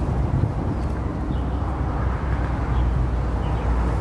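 Outdoor background noise: a steady low rumble, with a few faint, short high chirps.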